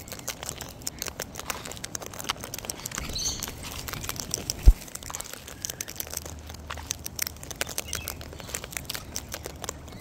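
Sulphur-crested cockatoos feeding from plastic seed tubs: a dense, irregular run of small crunches and clicks as their beaks work through the seed and knock against the containers, with one sharp knock a little under five seconds in and a few faint bird chirps.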